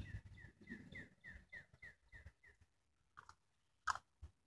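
A songbird singing faintly: a quick run of short notes that each slide down in pitch, about four a second, stopping about two and a half seconds in. Two brief sharp clicks follow near the end.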